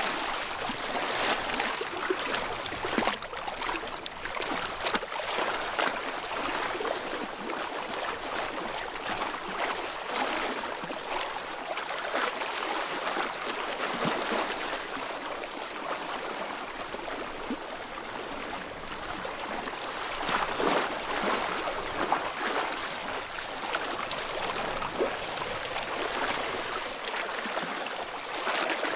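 Sea water lapping and washing at the shoreline, a steady hiss that swells and eases.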